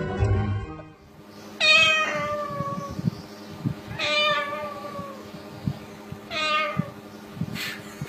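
Music cuts off about a second in; then a white cockatoo gives three drawn-out meows, imitating a cat, each falling in pitch and about two and a half seconds apart, over light scattered taps.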